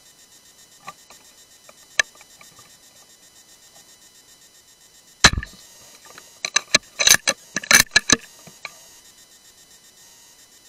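A single rifle shot, the loudest sound, fired at a wild boar about five seconds in, followed over the next couple of seconds by a quick run of sharp clicks and knocks. Crickets chirp faintly throughout.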